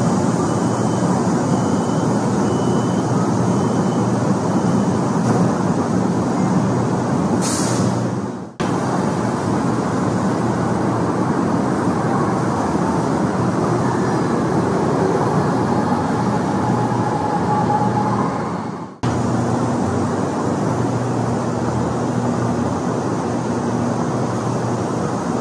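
Shanghai Metro Line 1 train running: a steady rumble of wheels and rail noise with a low hum. There is a short high hiss just before the sound drops out briefly, about a third of the way in, and a second dropout about three quarters of the way through.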